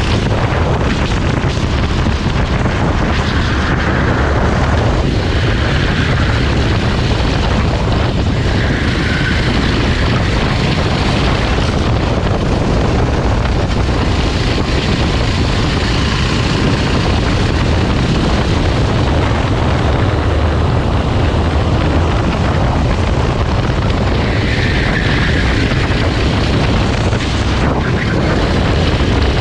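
Rental kart running at race speed, its engine nearly buried under a loud, steady rush of wind buffeting the microphone, with a few brief higher swells in the engine note.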